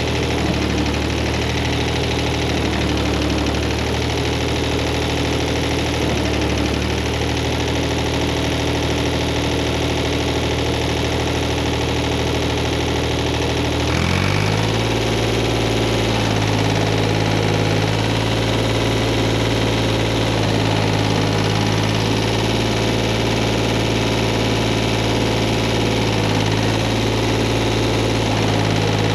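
Tractor engine running steadily. About halfway through, its speed steps up quickly and then holds at the higher speed.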